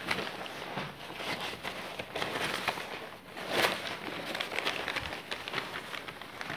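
Saree cloth being handled and unfolded: a continuous crackly rustle with small clicks and a louder rustle about three and a half seconds in.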